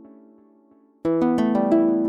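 Background music: one piece fades out, and about a second in another starts abruptly with quick plucked notes.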